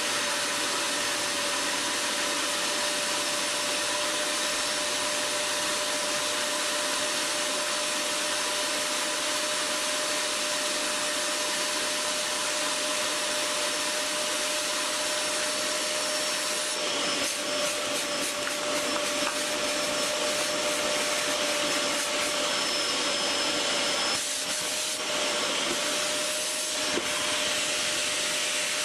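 Vacuum cleaner running steadily, a rushing airflow with a constant motor whine. About two-thirds of the way in the sound turns rougher and flickers, with a brief dip a little later.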